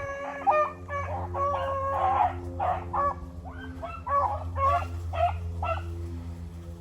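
A pack of rabbit hounds giving tongue on a running rabbit: several dogs baying in short, overlapping, rhythmic calls, over a steady low hum.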